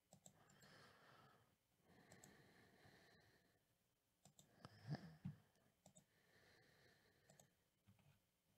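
Faint, scattered clicks of a computer mouse and keyboard, with the loudest few about five seconds in; otherwise near silence.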